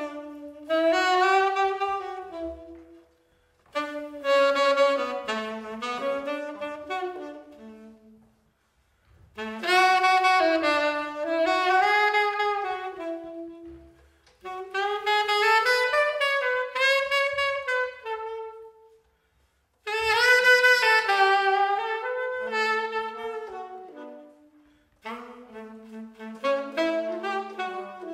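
Tenor saxophone playing a slow, singing melody in phrases of a few seconds each, separated by short pauses. A trumpet joins in near the end, playing alongside the saxophone.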